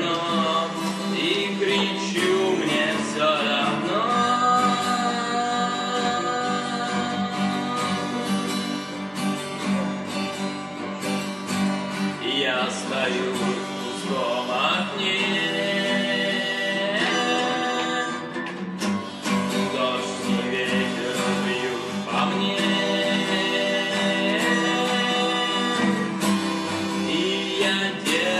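Harmonica playing long held notes over a strummed acoustic guitar: an instrumental break with no singing.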